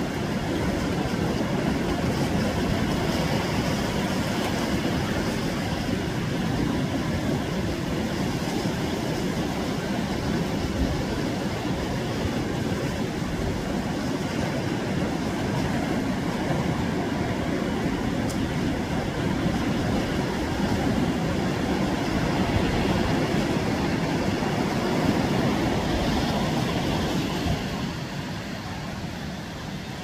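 Surf washing onto a sandy beach: a steady rushing roar that eases a little near the end.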